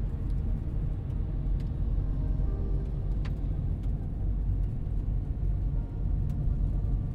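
Steady low rumble of a car driving, heard from inside the cabin: engine and road noise of a taxi on the move.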